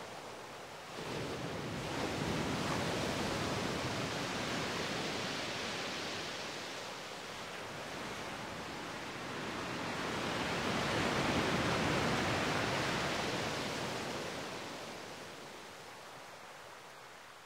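Ocean surf: a steady rush of waves that swells about two seconds in, eases off, and swells again near the two-thirds mark before fading.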